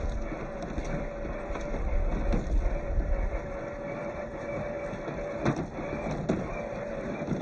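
Electric drive motor and gearbox of an MST CFX radio-controlled crawler whining steadily as it drives off-road, with a couple of sharp knocks from the chassis and tyres on the terrain about five and a half and six seconds in.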